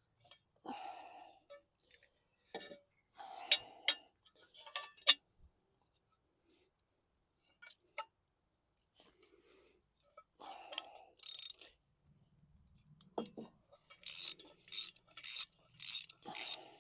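Metal hand tools and mower parts clinking, knocking and scraping while a lawn mower blade and its mounting plate are worked on. Near the end comes a quick run of about six sharp metallic strikes, about two a second.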